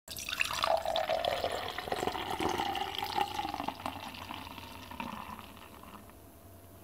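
Beer being poured into a glass, a splashing fill whose pitch rises a little as the glass fills, then fades out over the last couple of seconds.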